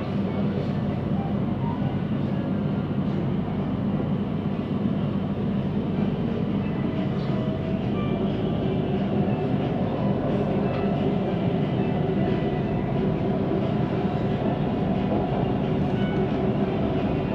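Siemens Inspiro metro train heard from inside the carriage while running between stations: a steady rolling rumble of wheels on rail, with faint steady tones over it. This is the rolling noise that the uploader calls weird in carriage 1392.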